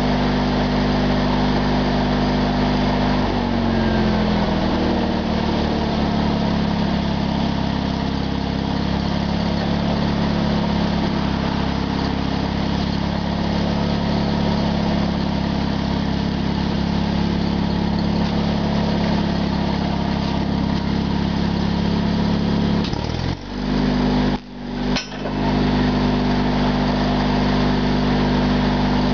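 A small engine running steadily, its note shifting about three seconds in as a welding load comes on, with welding arc crackle over it until about 23 seconds in. The sound then briefly cuts out twice, and the engine settles back to its first steady note.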